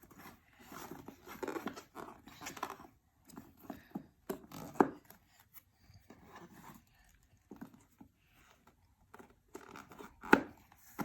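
Jigsaw puzzle pieces being handled and fitted together: scattered light clicks, knocks and rustles, with sharper knocks about 5 seconds in and near the end.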